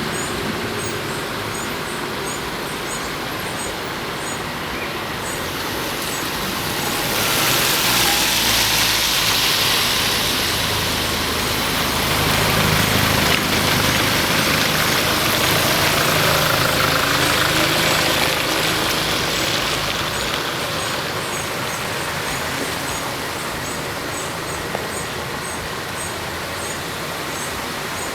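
A motor vehicle's engine passes slowly with a rush of noise that swells from about a quarter of the way in and fades again after two thirds, typical of a car wading through floodwater. Under it runs a steady wash of noise, with short high chirps repeating throughout.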